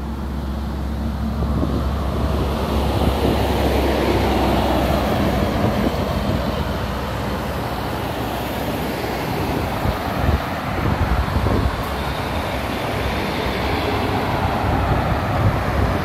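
Road traffic driving past: cars and heavy trucks, with engine drone and tyre noise swelling as they go by. A low steady hum is heard in the first few seconds.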